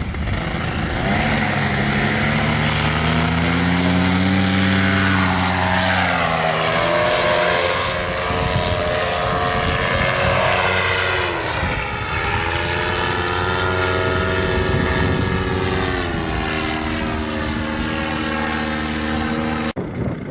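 Paramotor engine and propeller running, its pitch falling and rising again several times, then holding steadier before it cuts off suddenly near the end.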